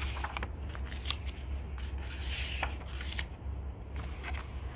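Paper pages of a hardcover picture book being turned and rubbed flat under a hand: light rustles and taps, with a longer brushing sweep about halfway through, over a steady low hum.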